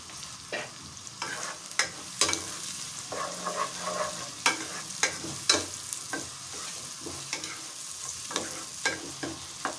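Sliced onions sizzling in oil in a non-stick pot, being lightly browned, while a spoon stirs them with repeated irregular scraping strokes against the pot.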